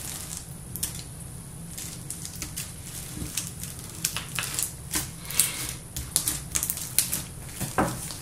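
Clear slime packed with small plastic beads being squeezed and kneaded by hand, giving irregular crackling clicks as the beads pop and shift in the slime.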